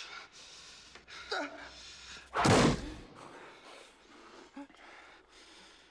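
A man's gasping breaths, then about two and a half seconds in one loud slam as a serrated combat knife is driven down into a desk.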